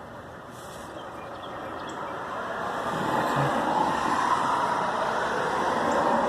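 A road vehicle nearby, its steady noise growing gradually louder as it approaches.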